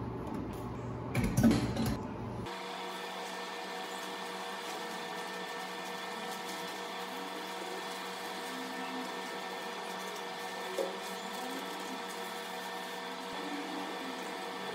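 Metal stove burner grates clinking and knocking against a stainless steel sink. About two and a half seconds in, the sound cuts to a steady motor-like hum made of several fixed tones.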